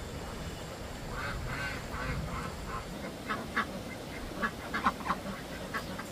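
Short, repeated bird calls starting about a second in, coming several to a second and loudest in the second half.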